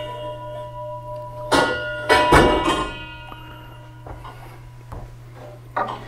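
Chime tubes of a Herschede tubular chime clock clinking against each other and ringing as they are handled and hung. There is a sharp knock about a second and a half in, then a louder clatter at about two seconds, and the ringing tones hang on and fade.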